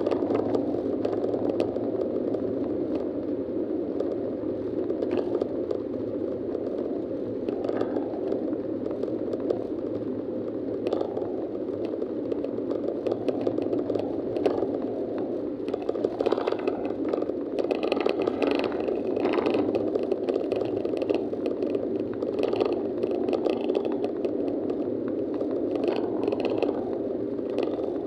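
Steady road and engine noise inside a moving vehicle's cabin, recorded by a windscreen-mounted dashcam, with many small clicks and rattles throughout, busier in the second half.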